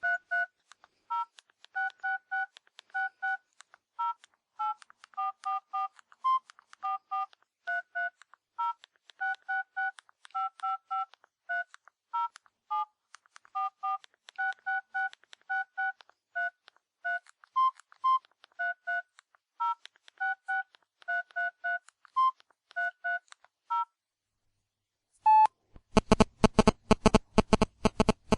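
Mobile phone keypad beeping as a text message is typed: dozens of short two-note key tones in an uneven typing rhythm, some keys pressed several times in quick succession. Near the end a single tone sounds, then a much louder, rapidly pulsing buzzy alert tone starts.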